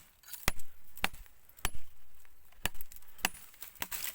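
A picoleta (small hatchet) chopping a green wild-olive branch: about five sharp, separate blows, roughly one a second.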